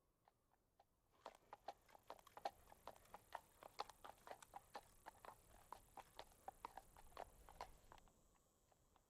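Faint, quick footfalls: a dense run of sharp clicking steps starts about a second in and thins back to slower steps near the end, over a faint hiss.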